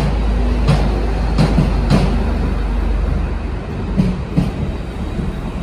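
DSB IC3 (MF) diesel multiple unit running past along the platform, with a steady low hum under it. Its wheels click over the rail joints several times, and the hum drops away about three and a half seconds in.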